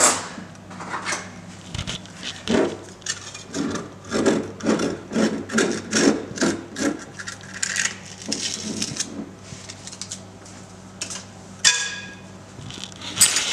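A jar of chocolate spread being opened: irregular scratchy scraping and rubbing strokes as its foil seal is cut open. Near the end come two short ringing clinks.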